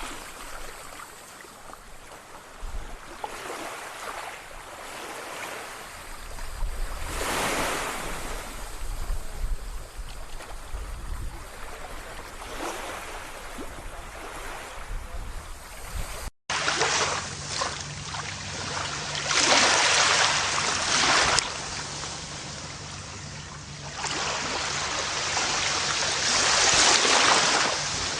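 Ocean surf washing onto a shore, with waves surging and falling back every few seconds. About halfway through it cuts abruptly to a different, louder surf recording with larger breaking waves.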